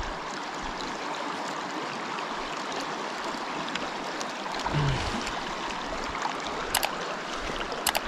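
Steady rush of river water flowing around the wader, with a few sharp clicks near the end.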